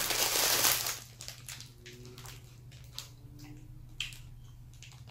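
A crunchy teriyaki-burger-flavoured puffed corn snack stick being bitten and chewed. There is a loud crunch in the first second, then quieter chewing and small crackles of its plastic wrapper, with a sharper crackle about four seconds in.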